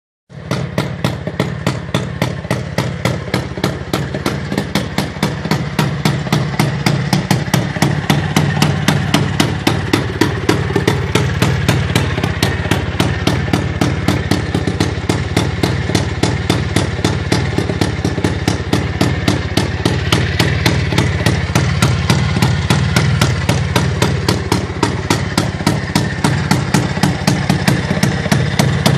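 IZh Planeta 5 single-cylinder two-stroke motorcycle engine, fitted with a Planeta 4 cylinder and twin exhausts, idling with no muffler. It gives a steady train of sharp exhaust pops, about four a second.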